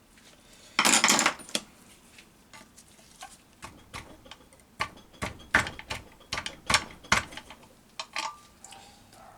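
A screwdriver working at small steel parts inside a Honda EP3 gearbox case: light metallic clinks and scrapes. There is a short rattling scrape about a second in, then a run of sharp clicks as a washer is worked loose.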